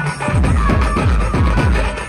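Dhumal band playing a sawari dhun: a row of large bass drums and side drums beaten together in a fast, driving rhythm. The deep drum strokes drop in pitch, several a second, under a held melody line.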